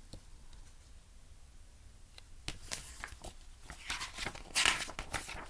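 Pages of a paperback picture book being handled and turned: paper rustling with a few soft clicks, loudest about four and a half seconds in.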